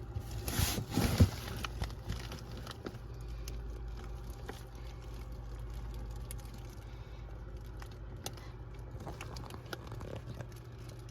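Faint crinkling and scattered clicks over a steady low hum, with a brief louder rustle about a second in.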